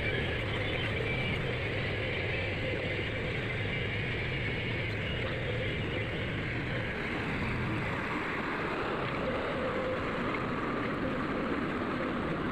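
Diesel engine of a JCB excavator running steadily.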